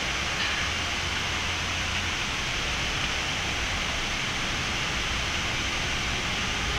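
Steady hiss of a Boeing 787-9's flight deck on the runway before the takeoff roll, with the aircraft's ventilation and engines at idle; a low hum under it fades about two seconds in.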